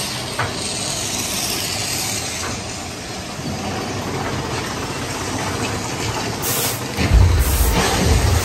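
Big Thunder Mountain Railroad mine-train roller coaster running along its track through a tunnel: a steady rushing hiss, joined about seven seconds in by a heavier low rumble.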